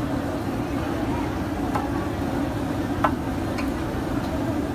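Fish frying in a large wok of hot oil, a steady sizzle, with three sharp clinks of metal utensils against the wok, the loudest about three seconds in.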